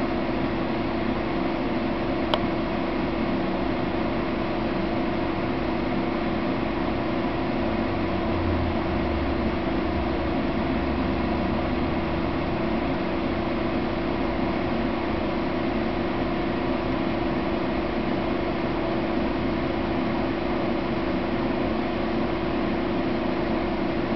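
Steady machine hum with one low steady tone over an even hiss, and a single faint click about two seconds in.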